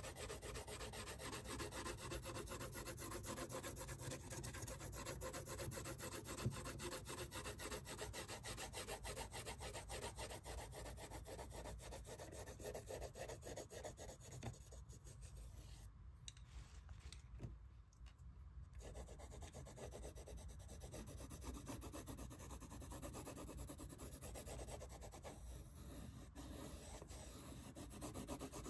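A blue coloured pencil shading on sketchbook paper: rapid back-and-forth scratchy strokes, with a short lull about halfway through.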